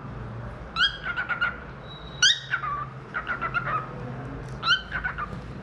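Cockatiel singing: three loud whistles, each rising in pitch, come about a second and a half apart, and each is followed by a quick run of short chirps. A steady low hum runs underneath.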